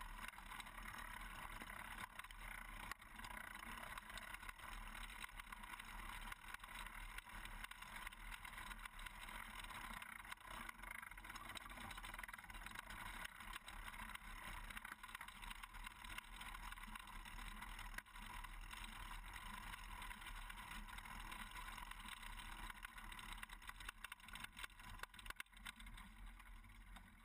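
Faint, steady rushing noise with light rattling from a pedal-powered moon buggy rolling over the course.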